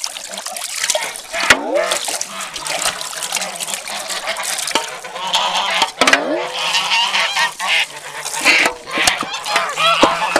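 A flock of domestic geese honking and cackling, many calls overlapping, with several sharp knocks among them.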